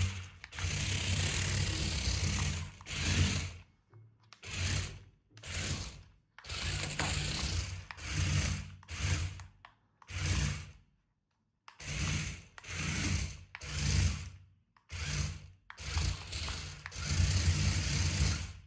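Electric motor and plastic gearbox of a toy RC car whirring in repeated short bursts, with brief silences between them as the throttle is pulsed.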